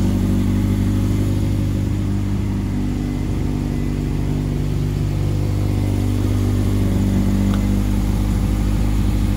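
Toyota MR2 roadster's mid-mounted four-cylinder engine idling steadily.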